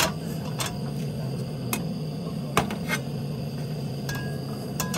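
Utensils clinking against dishes: about half a dozen sharp, irregular clinks over a steady low hum.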